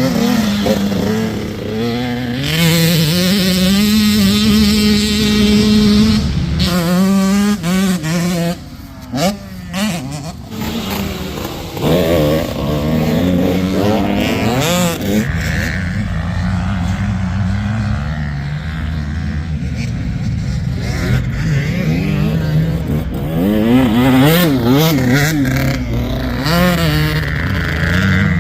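85cc two-stroke motocross bikes being ridden on a dirt track. The engine pitch rises and falls over and over as the throttle opens and closes and the gears change.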